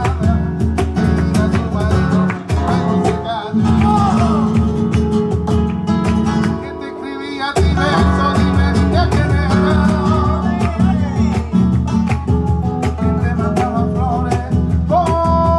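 Flamenco-style Latin music with fast-strummed acoustic guitar, easing off briefly about halfway through before picking up again.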